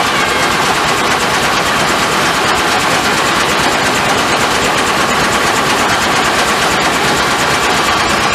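Steam-powered sawmill machinery running steadily with a loud, dense, rapid clatter.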